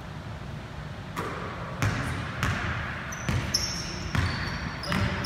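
Basketball bouncing on a hardwood gym floor, about six uneven bounces, with short high-pitched sneaker squeaks on the hardwood in the second half.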